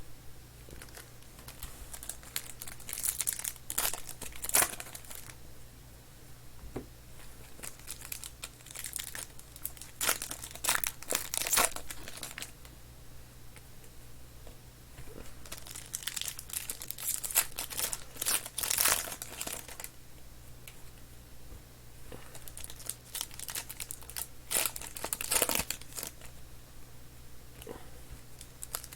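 Plastic trading-card pack wrappers being torn open and crinkled, in four bunches of rustling with quieter card handling between, over a steady low hum.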